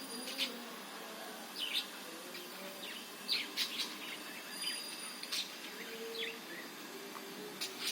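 Budgerigars chirping: short, scattered high chirps, some in quick runs of two or three, over a steady hiss.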